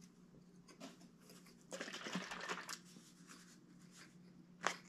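Faint handling noises at a table: about a second of rustling and crinkling in the middle, and one sharp click near the end.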